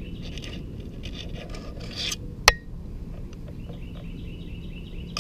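A smooth fox terrier scraping and rustling through dirt and dry leaves close to the camera while rooting out a snake, with a single sharp knock about two and a half seconds in.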